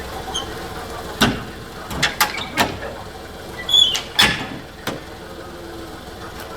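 Engine idling steadily, with a series of sharp knocks and clanks over a few seconds and a brief high squeak among them.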